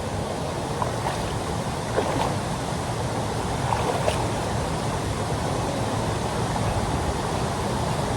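Steady rushing of river water below a waterfall.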